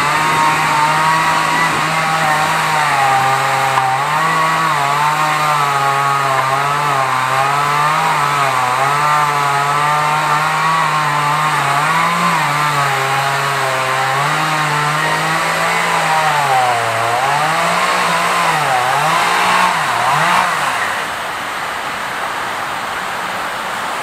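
A small engine running at high revs, its pitch wavering up and down as the load changes. Near the end it dips and rises a few times, then falls away sharply about 21 seconds in.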